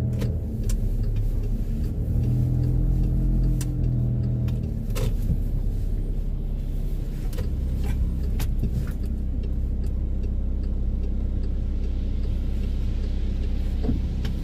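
Car interior while driving on wet roads: a steady low engine and road rumble that shifts and settles lower about halfway through, with occasional sharp ticks.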